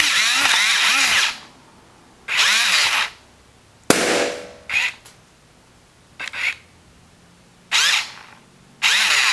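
Gear motors of a walking Attacknid toy robot whining in repeated bursts of up to about a second, the pitch wavering up and down as it crawls. About four seconds in there is a single sharp pop, as a small balloon bursts.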